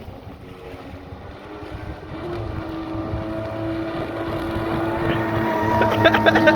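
Jet ski engine running at a steady pitch, growing steadily louder as it approaches.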